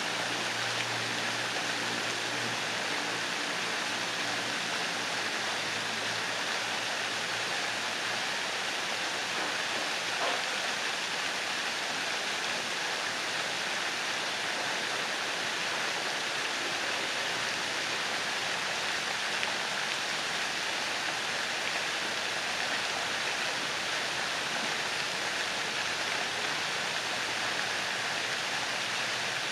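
Several pond fountain jets spraying up and falling back onto the water surface, a steady splashing of water without pauses.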